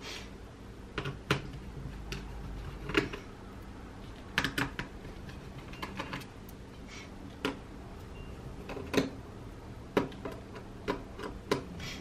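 Small screwdriver backing out the motherboard screws of an HP Chromebook 11 G3: light clicks and taps of the driver tip and screws, a dozen or so at irregular intervals.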